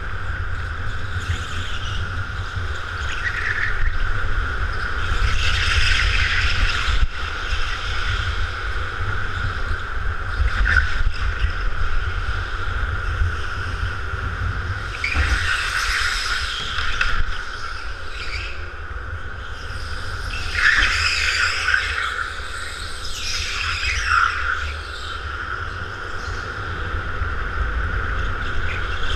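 Onboard sound of a go-kart at racing speed: a steady high whine over a low rumble, with tyres squealing in short bursts through the corners, about four times.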